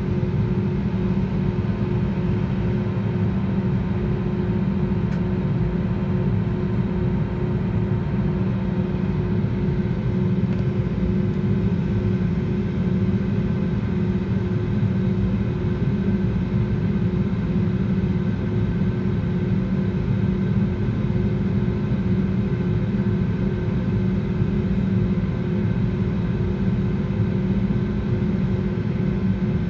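Airbus A320neo cabin noise from a seat over the wing with the engines at taxi idle: a steady low rumble with a few even hum tones running through it, unchanging throughout.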